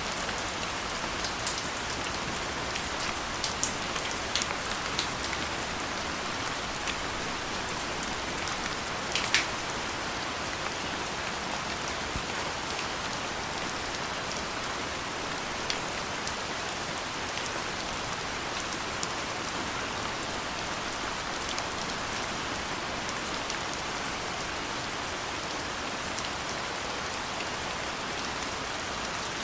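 Steady rain falling, with individual drops tapping close by. A few sharper drips stand out in the first third, the loudest about nine seconds in.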